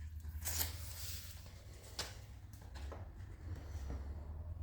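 Blue painter's tape being handled and pressed down: a brief rustle of tape about half a second in and a few small clicks, over a steady low hum.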